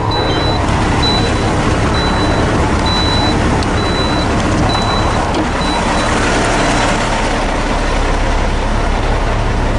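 Heavy truck's diesel engine running with a steady deep rumble. A high-pitched beep repeats about every three quarters of a second and stops about six seconds in.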